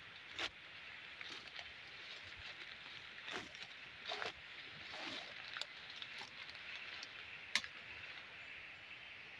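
Footsteps and brushing through forest undergrowth: leaves and twigs rustling and snapping in scattered bursts, with a sharp snap about seven and a half seconds in, over a steady high hiss.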